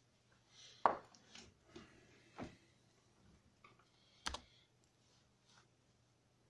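A handful of sharp clicks and knocks from handling the camera and tools at a table, the loudest about a second in and a deeper knock a little after four seconds.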